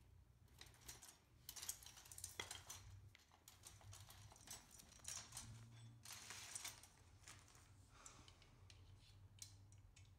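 Faint clicking and rattling of small metal parts being handled: a steel axle rod, washers and the wire frame of a utility cart knocking together during assembly, in a string of quick irregular clicks over a low steady hum.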